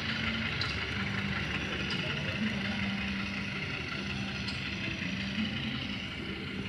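Diesel engine sound from the digital sound decoder of an HO-scale CC206 model locomotive, a steady running hum played through the model's small speaker, with a low tone that comes and goes. Faint light clicks about once a second.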